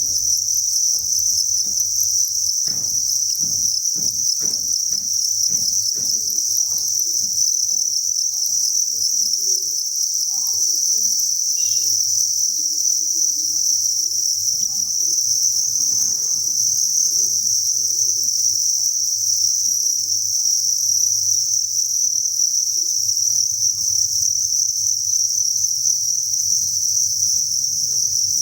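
A dense chorus of many crickets chirping at once, making a steady, unbroken high-pitched trill.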